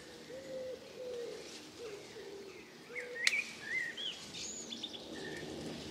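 Garden birdsong: a dove cooing in short, low, repeated notes, then small birds chirping and whistling from about halfway. A single sharp click sounds about three seconds in.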